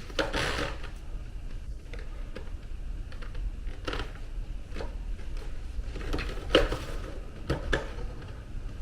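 Scattered clicks and knocks as the flow hood is handled and set up, over a steady low hum.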